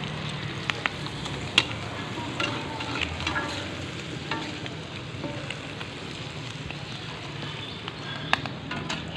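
Chopped shallots and chili sizzling in oil in a wok while a metal spatula stirs them. A steady sizzle runs throughout, with scattered sharp clicks and scrapes of the spatula against the pan.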